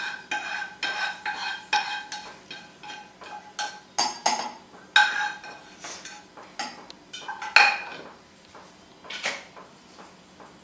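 A spatula scrapes masala out of a frying pan into a stainless-steel mixer-grinder jar. Irregular clinks and knocks sound as the pan and spatula strike the jar's rim, and the steel jar rings briefly after the harder knocks.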